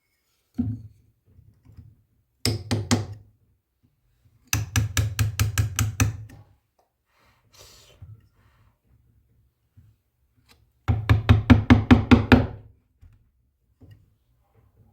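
A thump, then three bursts of rapid knocking on something hard, about five or six strikes a second: a short run of about four, then two longer runs of about ten strikes each.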